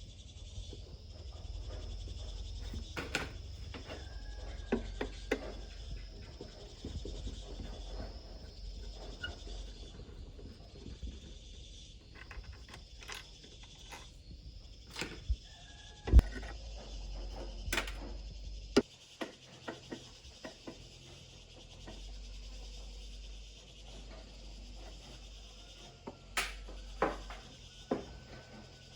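Scattered sharp clicks and knocks of small parts and tools being handled, the loudest about halfway through, over the steady high chirring of insects.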